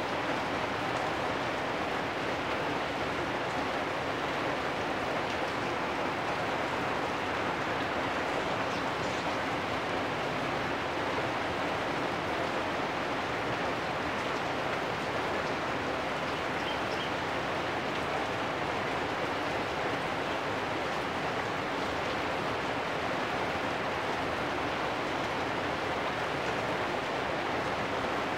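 Steady rain falling on corrugated metal roofs, an even hiss with no let-up.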